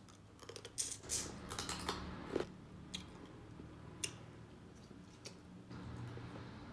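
Close-up mouth sounds of eating boiled crawfish: sucking and chewing with small sharp clicks, busiest in the first two and a half seconds, then a few separate clicks.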